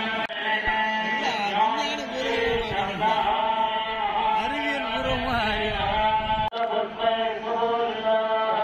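Several voices chanting Hindu devotional mantras together over a steady low drone.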